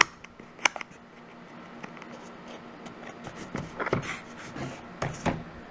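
Cardboard box being opened and handled by hand: two sharp taps near the start, then short bouts of cardboard scraping and rubbing toward the end.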